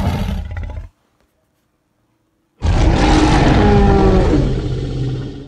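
Two loud animal roars: the first cuts off about a second in, and after a short silence a second, longer roar starts near the middle and fades away at the end.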